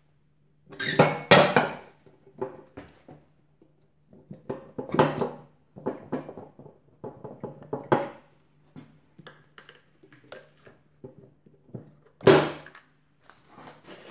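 Metal engine parts clinking and knocking as a homemade five-cylinder radial engine is taken apart by hand, its pistons, connecting rods and master rod lifted off the crankshaft. Irregular clanks, the louder ones about a second in, around five and eight seconds, and near the end.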